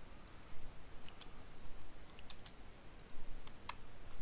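Irregular clicks of a computer mouse and keyboard, a dozen or so sharp clicks spread unevenly, over a faint low hum.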